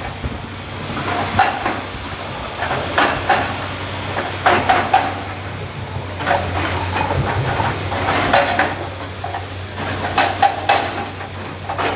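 Large excavator's diesel engine running steadily under work, with irregular metallic clanks and knocks every second or so.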